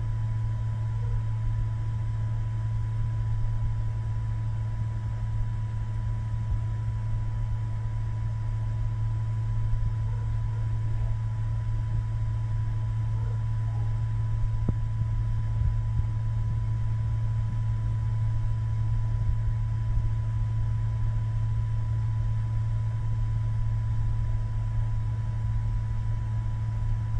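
MakerPi K5 3D printer's power supply and electronics running with a steady low hum and a thin constant whine above it while the printer heats its extruder before printing.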